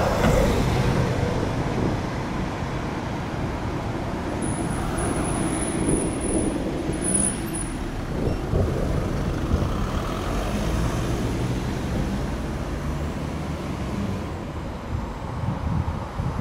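Road vehicle engines and tyre noise running steadily, a low rumble with no siren sounding.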